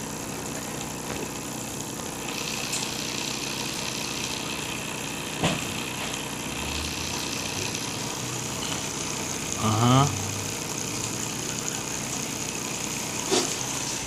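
Homemade magnet motor built on a microwave oven transformer coil running steadily with a continuous whir and hum. There are a couple of light knocks and a short rising voice-like sound about ten seconds in.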